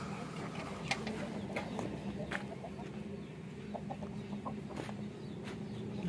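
Hens clucking now and then over a steady low hum, with scattered light clicks and knocks.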